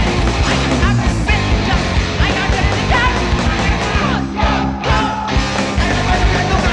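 Live punk rock band playing loud, with shouted vocals over the instruments. The sound briefly drops back about four seconds in.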